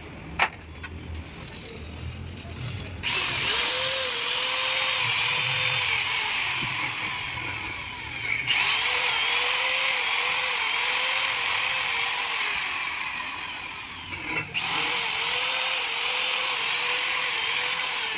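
A power tool running under load in three long runs, stopping and starting again twice, its motor pitch sagging and recovering as it bites.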